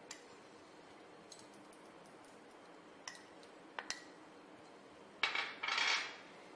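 A metal spoon clinking and scraping against a small glass bowl and a ceramic plate as roasted gram powder is spooned out: a few light clinks, then a louder scrape lasting about a second near the end.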